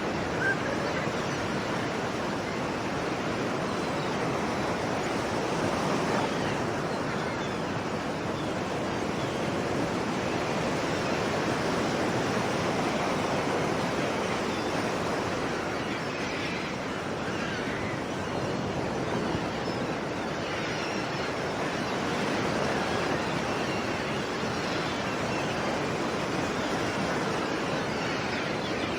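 Sea waves washing in continuously: a steady rushing surf that swells and eases slowly over several seconds.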